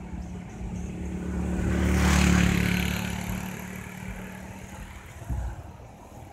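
A motor vehicle driving past. Its engine hum and road noise swell to a peak about two seconds in, then fade away.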